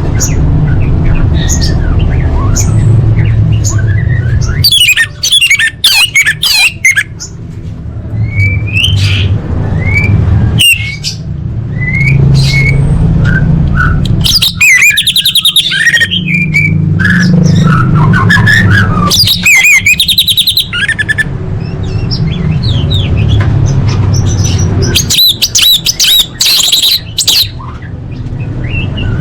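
Orange-headed thrush (anis merah) singing a loud, varied song of fast trills, short whistled glides and harsher notes, in phrases broken by brief pauses. A steady low rumble runs underneath.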